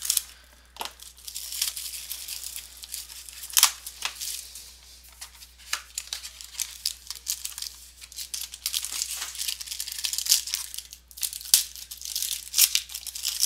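Trading-card packaging being torn open and crinkled by hand, a run of irregular sharp crackles and rustles.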